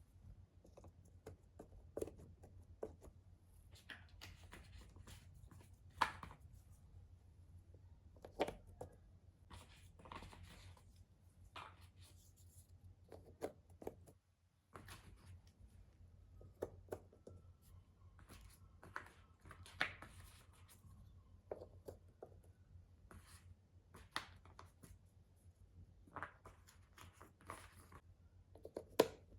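Cardboard jigsaw puzzle pieces being handled: irregular soft taps, clicks and rustles as pieces are picked up, slid and pressed into place, over a faint low hum.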